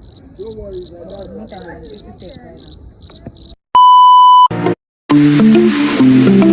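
A run of about ten short, high beeps, about three a second, over faint background voices. Then a loud steady electronic bleep lasts under a second, and after a brief cut, guitar music starts about five seconds in.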